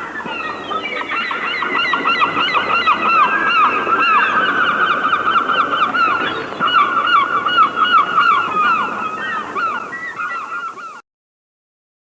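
A flock of birds calling all at once: a dense chorus of overlapping short chirps and honking notes that cuts off abruptly about eleven seconds in.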